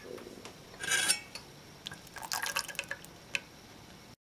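Metal spoon moved in thick sugar syrup in a stainless steel saucepan: syrup dripping and splashing off the spoon, with a few light clicks of the spoon against the pan about a second in and again around two seconds in.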